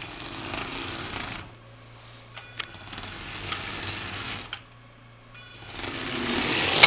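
Thunder Tumbler toy RC car's electric drive motors whirring in three short bursts with pauses between, as the Arduino-controlled car runs through programmed forward, reverse and turn moves on a wooden floor. A few sharp clicks come in the second pause, and a sharp knock comes at the very end.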